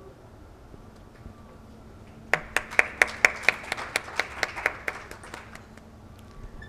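Hand clapping: a short burst of sharp, distinct claps, about five a second, starting about two seconds in and fading out after about three seconds.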